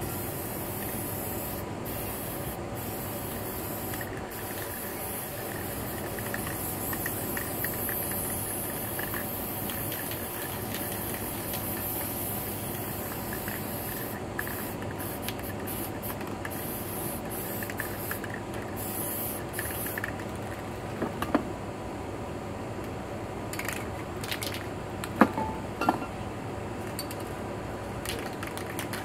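Aerosol spray paint can hissing in long sprays with brief pauses, for about twenty seconds. Near the end the hiss dies down and a few sharp clicks and knocks are heard.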